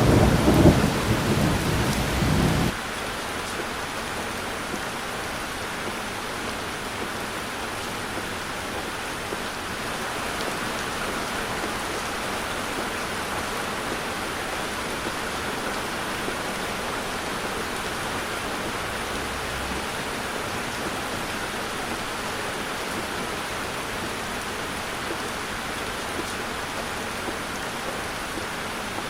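Heavy rain on a car's roof and windscreen, heard from inside the car as a steady hiss. For the first two to three seconds a loud low rumble sits over it, then cuts off suddenly.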